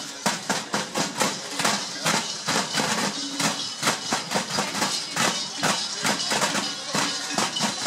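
Many large Perchten cowbells clanging and rattling irregularly as the costumed Perchten move, a dense, continuous clatter of sharp strokes.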